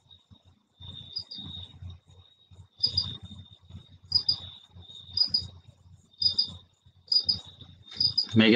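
Crickets chirping: a steady high trill with paired sharper chirps about once a second. Faint low sounds come with the chirps.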